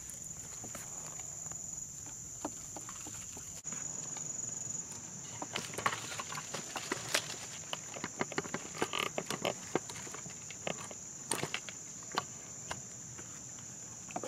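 A wooden stir stick scrapes and clicks in a plastic bag as plaster of Paris is mixed by hand, with the bag crinkling. A steady high-pitched insect drone runs underneath.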